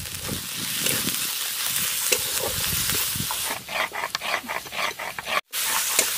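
Onion and spice masala sizzling in hot mustard oil in a wok while it is stirred. About three and a half seconds in it gives way to irregular stone-on-stone scraping and knocking from a hand grinding stone (sil-nora) working spice paste. A brief dropout follows, then sizzling again near the end.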